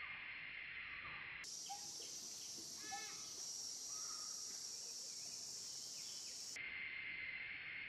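Steady high-pitched drone of insects, which shifts higher for a few seconds in the middle, with a few short chirping calls about two and three seconds in.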